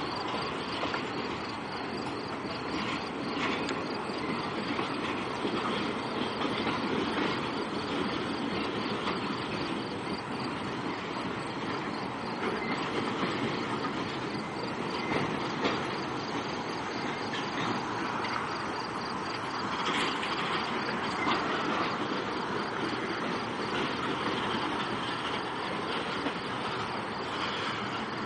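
Norfolk Southern freight train rolling past, its cars' steel wheels running on the rails in a steady, continuous noise.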